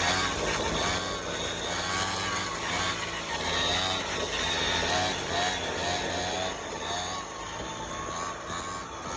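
X3 pocket bike's small two-stroke engine being revved as it is ridden, its pitch rising and falling over and over.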